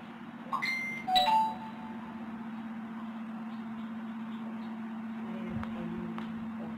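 Two short electronic chime tones about half a second apart, about a second in, like a two-note doorbell or notification ding, over a steady low hum.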